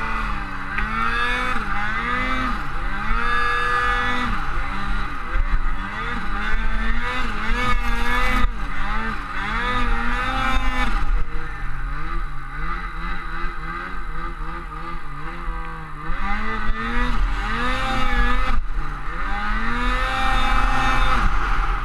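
Turbocharged Ski-Doo 850 two-stroke twin snowmobile engine running under load in deep powder, its pitch rising and falling again and again as the throttle is worked.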